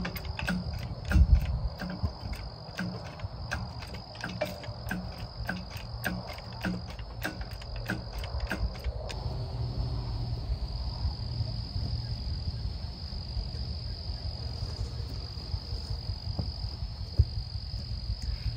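Steady high-pitched insect trilling, with a run of quick, sharp clicks over the first half that stops about halfway through.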